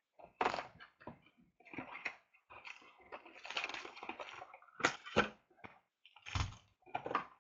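A cardboard trading-card box being torn open and its wrapped card packs rustling and crinkling in the hands, in irregular scrapes and crinkles, the loudest about five and six and a half seconds in.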